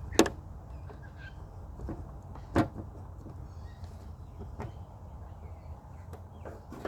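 Plastic chainsaw housing parts being worked apart by hand: a few sharp knocks and clicks, the loudest just after the start and another about two and a half seconds in, over a steady low hum.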